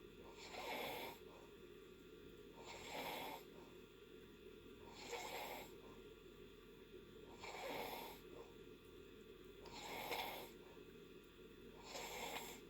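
Faint, even snoring of a sleeper in deep sleep: six breathy snores, each under a second long, about two seconds apart.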